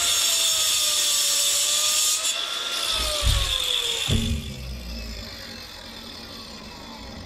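Angle grinder running and grinding a manufactured stacked-stone veneer piece to trim it for a tight fit, then released so its whine falls steadily in pitch as it winds down over the second half. A couple of low thumps come about three and four seconds in.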